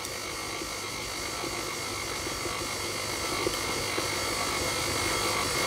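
Electric stand mixer running at its lowest speed, its flat beater turning through a stiff eggless dough of butter, sugar, flour and baking powder. A steady motor hum with a faint whine, growing slightly louder.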